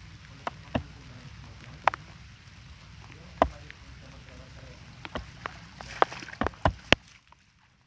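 Steady rain, with sharp taps of raindrops landing close by, scattered through and several in quick succession near the end. The sound drops away briefly just before the end.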